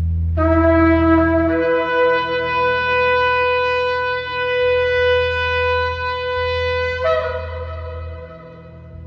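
Shofar blown in one long note: it starts low, jumps up to a higher pitch about a second and a half in, holds it steadily for about five seconds, then breaks and dies away near the end.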